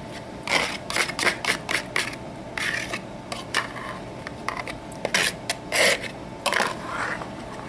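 A metal fork scraping a beaten egg out of a paper bowl into a stainless-steel mixing bowl: a run of short scrapes and taps.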